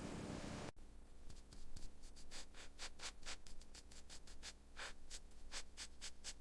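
A steady hiss that cuts off under a second in, followed by quick repeated scratching strokes of a hand tool on a surface, irregular, about three or four a second.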